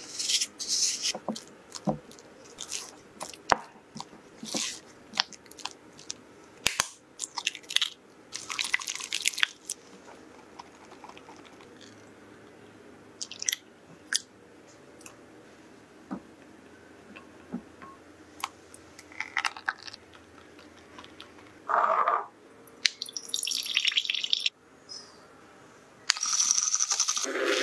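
Cream cheese and sugar being worked in a glass bowl with a silicone spatula: short squishing and scraping strokes with light clinks against the glass, and brief pours of liquid. About 26 seconds in, a handheld electric milk frother starts whirring steadily in a glass of coffee.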